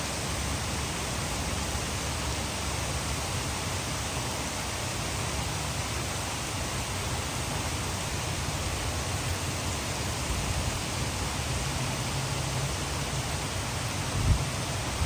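Steady rush of heavy rain mixed with water pouring over a hydroelectric dam. A brief low thump stands out near the end.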